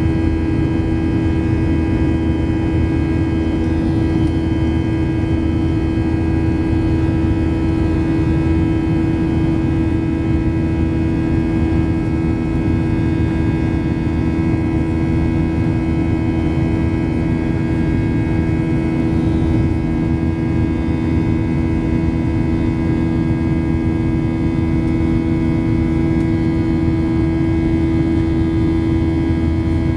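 Boeing 737-700's CFM56-7B turbofan engines at climb power, heard inside the cabin as a steady drone. The drone carries a strong low hum with several fainter steady tones above it.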